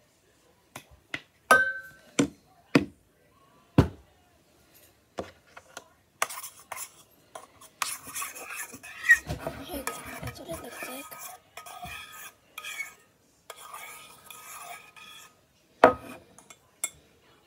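A toy fork stirring and scraping inside a stainless steel pot of homemade slime, with metallic clinks. A few sharp knocks come first, then steady scraping, and one loud knock near the end.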